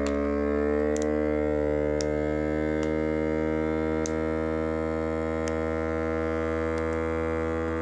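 Vacuum sealer's pump motor running steadily, drawing the air out of a food bag; its hum sags slightly in pitch in the first second or two and then holds steady.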